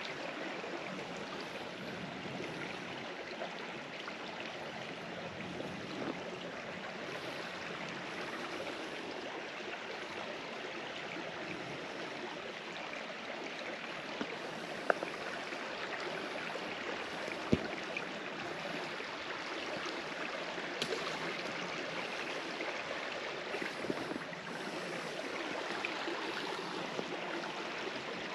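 Shallow mountain creek running steadily, a continuous rush of flowing water. A few sharp clicks stand out in the middle stretch.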